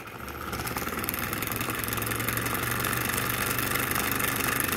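Homemade brushless Newman motor, a magnet rotor spinning between two copper coils and switched by a 2N3055 transistor, running with a steady, fast-pulsing whir. It grows louder over the first second or two as a 15,000 µF capacitor connected across its input speeds the motor up, then holds steady.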